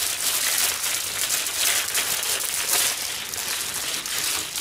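Thin plastic produce bag crinkling and rustling continuously as a bunch of spinach is worked out of it by hand.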